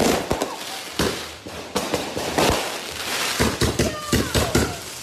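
Consumer fireworks going off, with rockets launching and a rapid, irregular string of sharp bangs and crackles that is densest near the end.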